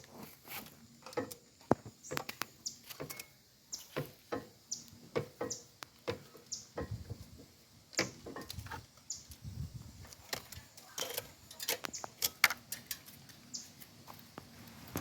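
Irregular sharp clicks and knocks, with short high chirps scattered between them.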